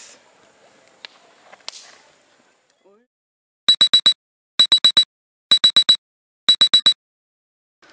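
Digital alarm clock beeping: four groups of about four quick, high-pitched beeps, the groups about a second apart, starting almost four seconds in. Before it, faint quiet with a couple of soft clicks.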